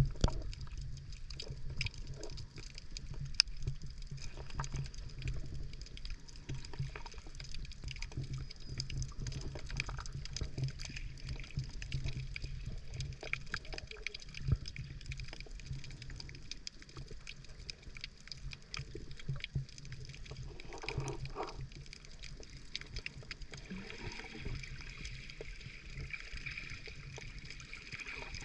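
Muffled underwater sound picked up by a submerged camera: a steady low rumble of moving water with many small scattered clicks and crackles, and a brief gurgle about two-thirds of the way through.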